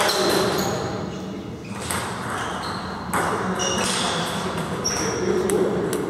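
Table tennis ball clicking sharply off the table and rackets in a hall, a handful of separate knocks a second or so apart.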